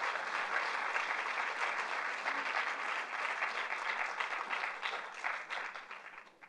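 Audience applauding: many people clapping, thinning out and fading away in the last second or so.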